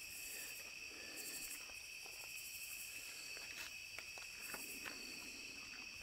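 Night insect chorus: crickets trilling steadily in several high-pitched layers, the highest pulsing on and off, with a few faint ticks.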